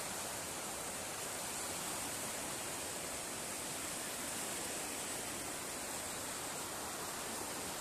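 Swollen river in flood, fast brown water rushing past half-submerged bushes as a steady, unbroken rush of water noise.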